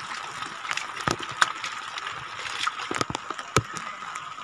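Hands scooping and splashing shallow muddy rainwater, with irregular splashes and small knocks.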